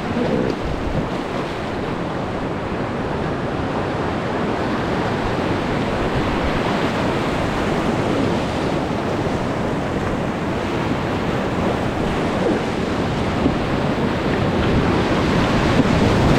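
Steady rushing of whitewater in a river rapid, growing gradually louder.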